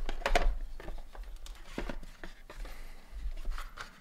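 Unboxing noises: a cardboard box and a plastic access-point mounting plate handled by hand, with a string of short rustles, scrapes and light knocks, the loudest just after the start.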